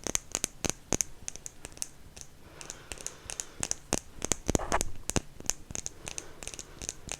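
Light, crisp ASMR tapping and clicking, several irregular taps a second. About four and a half seconds in there is a louder, fuller handling rustle.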